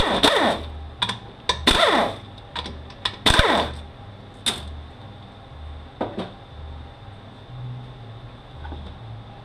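Power ratchet running bolts out of a 6T70E transmission case in three short bursts during the first four seconds, each spinning down in pitch. Scattered sharp clicks of metal parts being handled follow.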